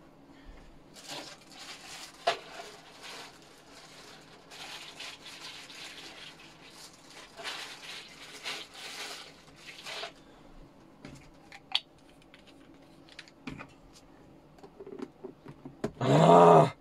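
Plastic packaging rustling and crinkling as it is handled, then scattered clicks and knocks from the aluminium case and its latch. A brief loud pitched sound comes near the end.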